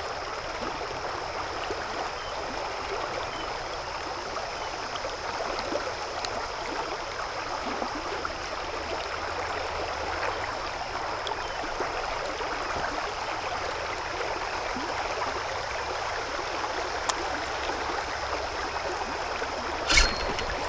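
Creek water running steadily, an even rushing sound, with a thin steady high tone in the background and a sharp knock near the end.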